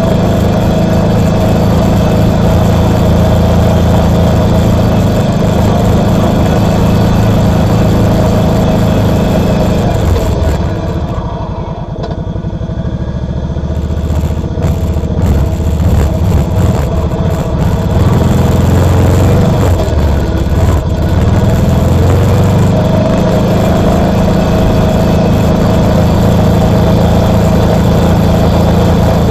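Kawasaki Brute Force 750 ATV's V-twin engine running as it is ridden. About ten seconds in, the engine sound drops away for a few seconds, then picks back up to a steady pull.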